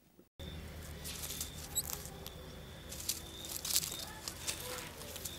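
Rustling and crackling as a cat moves through grass, with many short sharp clicks and a quick run of high chirps about two seconds in.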